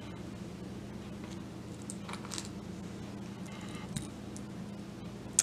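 Quiet room with a steady low hum and a few faint, light clicks as small metal cufflinks are handled, with the sharpest click about four seconds in.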